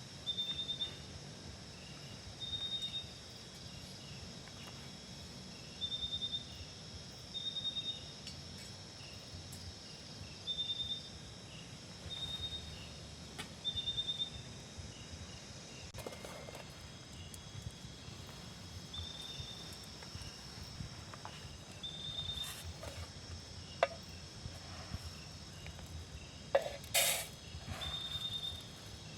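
Insects calling: one insect repeats short, even buzzing chirps every few seconds over a steady high-pitched insect drone. A few sharp clicks or knocks come near the end.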